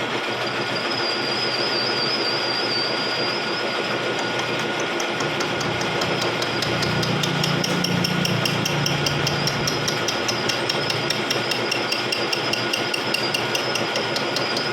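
Vertical milling machine cutting the teeth of a spur gear: a steady high whine with rapid, even ticking from the cutter that sets in a few seconds in.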